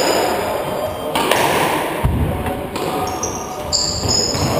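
Squash rally: the rubber ball struck by rackets and smacking off the court walls, a sharp hit every second or so, with shoe soles squeaking on the wooden floor in between.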